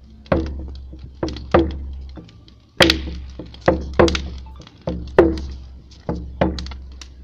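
A hand drum beaten slowly, about ten strokes with some in close pairs, each leaving a low ring that dies away.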